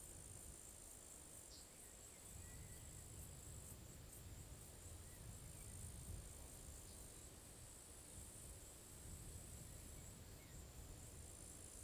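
Faint, steady, high-pitched chirring of crickets in the grass over a low rumble.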